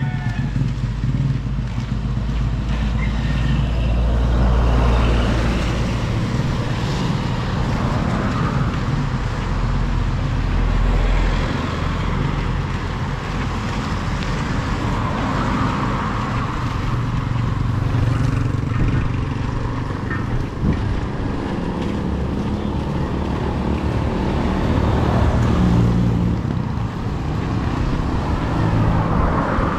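Street traffic: motor vehicles driving past, their engines running over steady road noise that rises and falls as they come and go.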